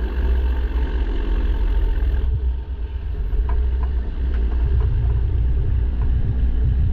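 Full-delete, straight-piped PACCAR MX13 diesel truck engine running with a deep, steady sound; a couple of seconds in, the higher-pitched noise above it drops away abruptly.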